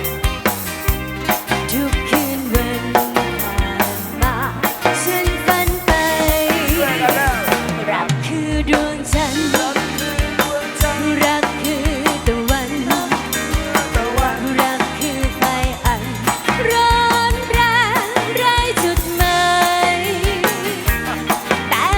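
A live band playing an instrumental passage of a Thai pop song: a drum kit with snare hits keeps a steady beat under a wavering melodic lead.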